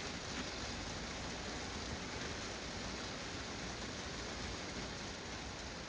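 Heavy rain falling steadily on a greenhouse roof, an even hiss with no distinct events.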